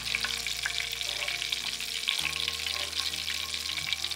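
Breaded smelt deep-frying in hot avocado oil in a cast iron skillet: a steady crackling sizzle full of small pops, the oil at frying temperature (350 °F).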